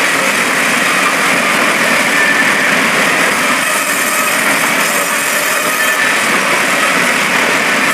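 Log band sawmill running, a steady, loud machine noise with no break.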